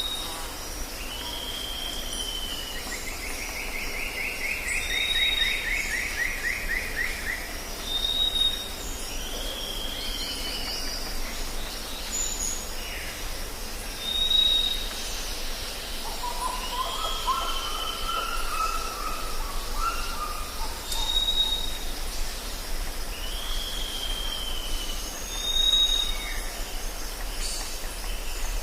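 Tropical forest ambience: several birds calling over one another. A short high whistle repeats every few seconds, with downcurved calls just below it, a fast trill early on and a lower warbling trill about two-thirds of the way through, all over a steady high background drone.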